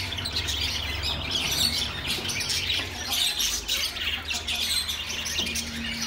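Many small caged birds chirping together, a dense, continuous twittering with no pauses.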